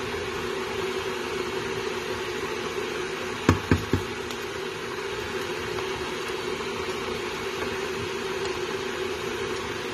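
A wooden spoon stirring chicken in a pot, knocking three times in quick succession against the pot about three and a half seconds in, over a steady hiss.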